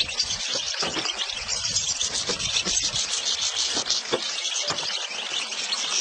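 Dense, continuous high-pitched chatter of a large mass of European goldfinches twittering together.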